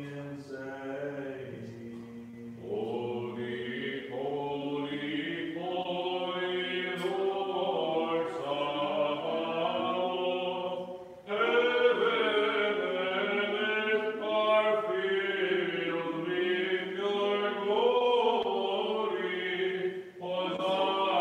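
Byzantine liturgical chant: voices sing long, slow melismatic phrases, breaking off briefly about 11 and 20 seconds in before carrying on.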